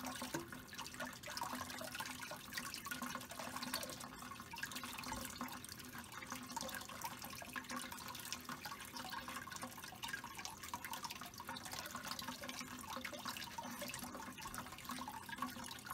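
Kitchen faucet running a thin, steady stream over an egg and hands and splashing into the sink while the egg is peeled under the water.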